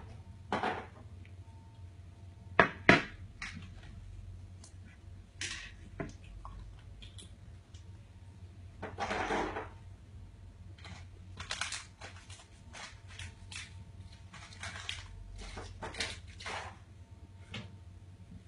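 Scattered light knocks, clicks and rustles, with two sharp knocks close together about three seconds in and a longer rustle a little after nine seconds, over a steady low hum.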